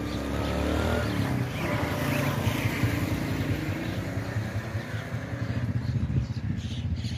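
A motor engine running steadily with a low, evenly pulsing tone, and a faint rising whine in the first couple of seconds.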